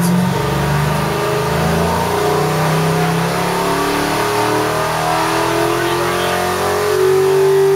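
Fuel-injected 1956 Chrysler Hemi V8 running under load on an engine dyno, its pitch climbing slowly and steadily as the revs are swept upward in a dyno pull.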